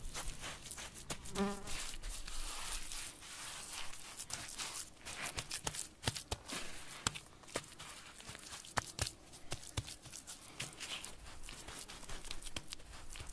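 Bare hands pressing and patting wet adobe mud on gritty ground: scattered soft crackles and clicks of grit. A short insect buzz about a second and a half in.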